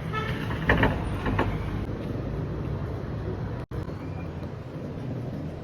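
Steady low outdoor rumble of background noise, with a few brief higher pitched sounds in the first second and a half.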